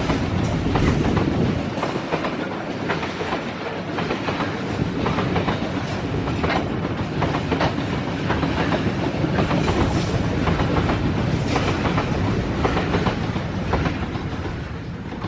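Babaranjang long coal train rolling past, its wheels clicking and clunking over rail joints in an uneven run under a steady rumble, fading a little near the end.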